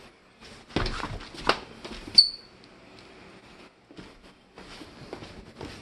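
Footsteps and scuffling on a hardwood floor, with a few knocks in the first second and a half. About two seconds in comes one short, sharp, high-pitched squeak.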